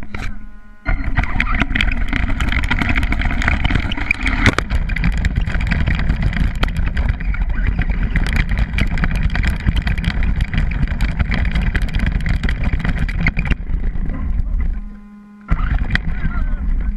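RC stadium truck running hard, heard from the GoPro mounted on it: a loud, dense mix of drivetrain noise and chassis rattles with sharp knocks. Near the end it eases off to a steady low hum before picking up again.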